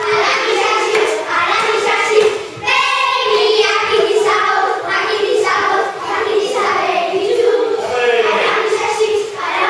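A group of children singing a song together, several voices in unison, echoing in a large hall.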